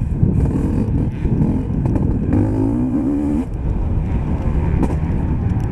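Motocross bike engine revving hard, its pitch rising and falling as the rider works the throttle through the turns, heard close from the bike itself over a constant rush of noise.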